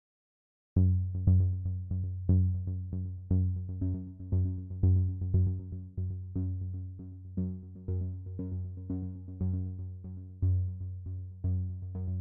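Electronic synthesizer music with a steady beat and a strong bass line, starting abruptly out of silence about a second in.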